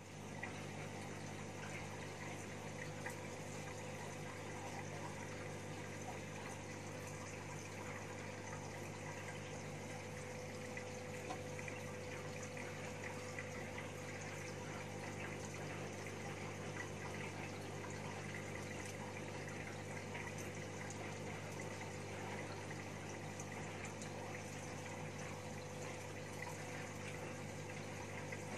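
Aquarium water pump running steadily: a constant low hum under the even rush of moving water.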